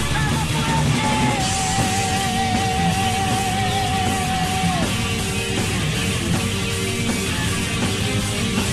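Power metal song with distorted electric guitars, bass and drums. A long, high held note wavers slightly from about a second in until about halfway through, over the full band.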